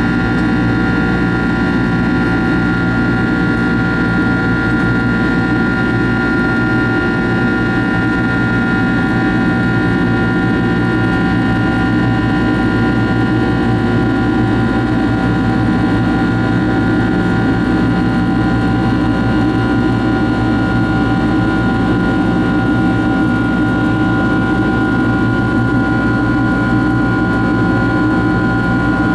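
Rolls-Royce RB211 turbofan engines of a Boeing 767-300 at climb power, heard inside the cabin: a steady, loud rumble of engine and airflow with a steady high whine over it.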